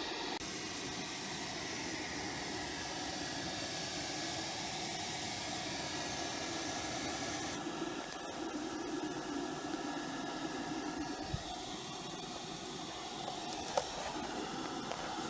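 Homemade metal-melting furnace running, a steady hiss from its air blast while the aluminum melts.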